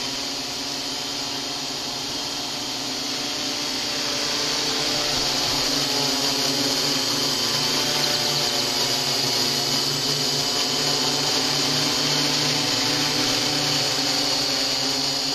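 XAircraft X650 quadcopter's electric motors and propellers whirring steadily as it flies close by, growing louder about a third of the way in.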